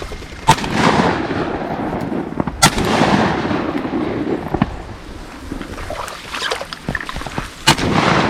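Three shotgun shots, the first two about two seconds apart and the third about five seconds later, with a rushing noise between them.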